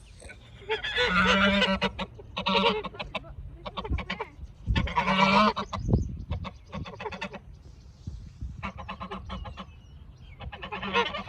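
Birds calling loudly in about five bouts of rapid repeated calls, with quieter gaps between them.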